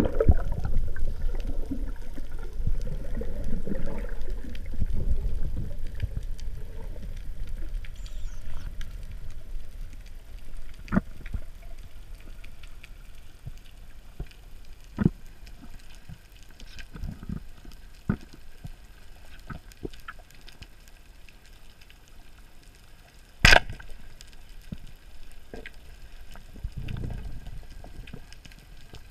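Underwater sound of a freediver descending, picked up through an action camera's housing: a low rush of water moving past that fades after the first several seconds, with scattered sharp clicks and one loud click about three-quarters of the way through.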